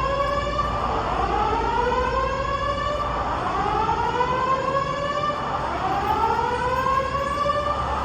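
Building alarm sounding a repeating whoop tone that rises in pitch and levels off, about one every two seconds, four times. It cuts off at the end. It is an alarm whose cause staff are still investigating.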